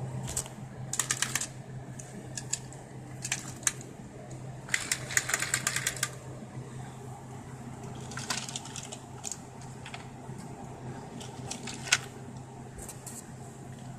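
Toy trains clicking and rattling in short bursts of quick clicks as engines and trucks are shunted along toy track, with one sharp click near the end.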